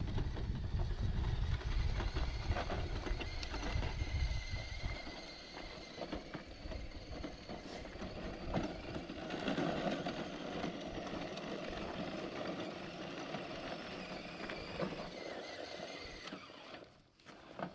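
Element RC Enduro Trailwalker scale crawler driving over loose gravel, with a faint steady whine from its motor and gears and many small ticks of tyres crunching on stones. Wind rumbles on the microphone for the first few seconds.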